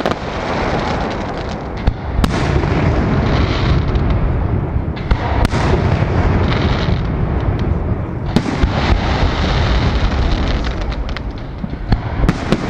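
Aerial firework shells bursting in a continuous rumble of booms and crackle, with sharp, separate cracks about two seconds in, five and a half, eight and a half, and a quick cluster near the end.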